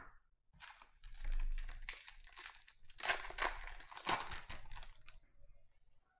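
Foil wrapper of a Panini Contenders baseball card pack being torn open and crinkled by hand. The crackling builds, is loudest in the middle, and stops about five seconds in.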